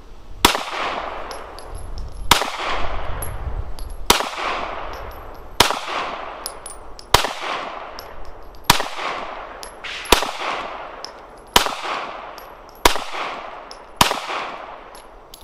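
Ten shots from a Glock 19 9mm pistol firing 115 grain full-metal-jacket ball ammunition, slow deliberate fire about one shot every one and a half to two seconds, each crack followed by a decaying echo.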